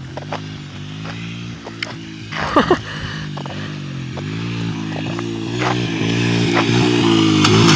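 Engine of a worn 2001 Honda XR70 dirt bike, a small four-stroke single, running with the revs rising and falling as it is ridden, getting louder toward the end. The engine has been revved hard and badly needs a rebuild. A brief high-pitched sound cuts in about two and a half seconds in.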